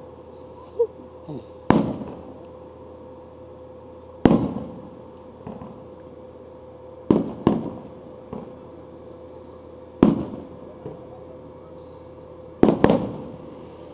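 Aerial firework shells bursting in a professional display: about seven loud booms every two to three seconds, two of them in quick pairs, each trailing off in a rolling echo, with a few smaller pops in between.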